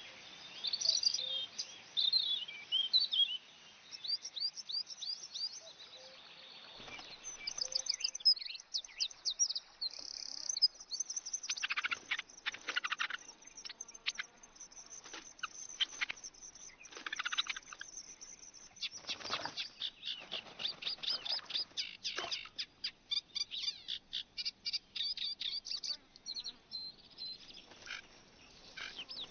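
Bird chirps and tweets used as added sound effects: many short, high chirps and quick trills in clusters, with brief pauses between them, growing denser in the second half.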